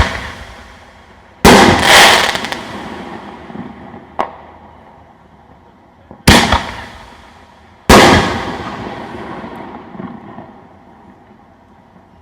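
5-inch aerial firework shells going off: loud booms about a second and a half in, again half a second later, and at about six and eight seconds, each trailing off over a few seconds, with a smaller pop around four seconds.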